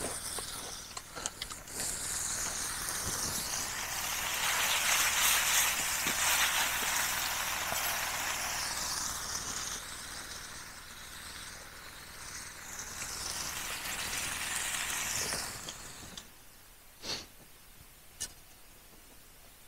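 Steak sizzling over a wood campfire: a steady hiss that builds, holds for several seconds and then cuts off fairly suddenly, followed by two short sharp pops.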